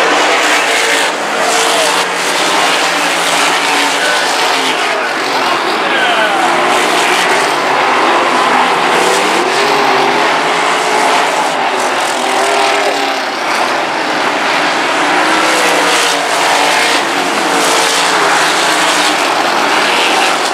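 Several RaceSaver 305 sprint cars' V8 engines racing at once, their pitch rising and falling over and over as they accelerate and lift past.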